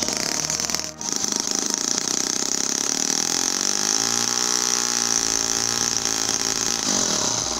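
Miniature 3.5 cc four-stroke gasoline stationary engine running steadily with a high-pitched buzz, its pitch wavering slightly midway.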